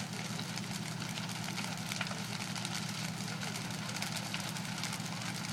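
A fire truck's engine running steadily at idle, with faint crackling from the burning house over it.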